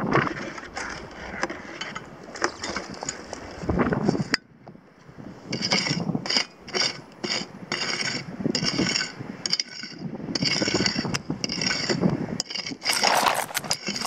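Prospecting pick chopping into hard, stony soil: a quick, even run of sharp scraping strikes, several a second, after a sudden cut about four seconds in. A louder rough noise comes near the end.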